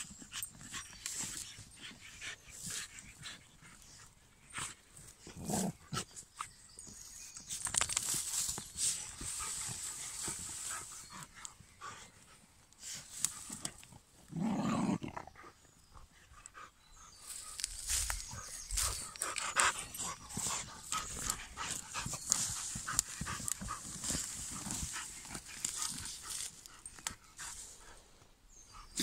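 Two German Pinschers digging into a hole in soil: paws scratching and scraping earth in quick, irregular strokes. A short, low dog vocal sound comes about halfway through.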